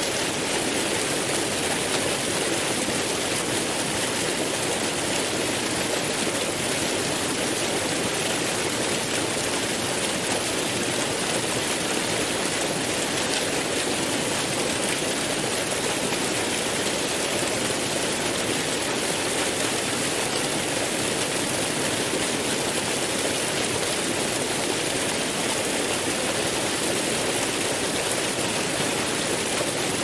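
Waterfall pouring into a rock pool: a steady, unchanging rush of falling water.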